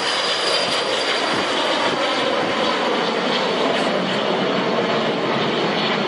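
Cessna Citation M2 business jet's twin Williams FJ44 turbofans running at takeoff power as it climbs away. It is a steady, loud jet noise with a thin high whine that slowly drops in pitch.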